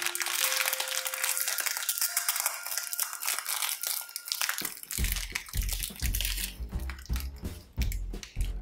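Plastic snack wrappers crinkling and crackling as they are handled. About halfway through, background music with a bass line and a beat comes in.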